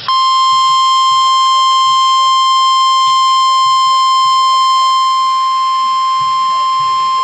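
NOAA Weather Radio warning alarm tone: a single loud, steady high tone near 1050 Hz, sounded on the weather radio to announce that a new warning is about to be read.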